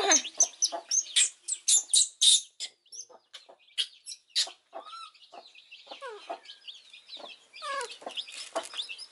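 Baby chick peeping: many short, high calls in quick succession, thinning out after about three seconds.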